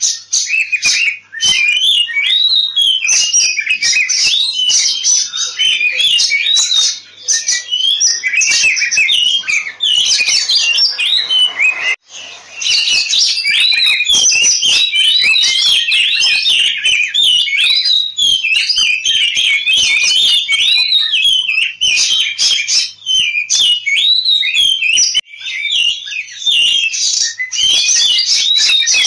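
Oriental magpie-robin (kacer) singing its fast, aggressive 'ngobra' fighting song, a dense unbroken stream of rapid chirps and whistles, with one brief pause about twelve seconds in.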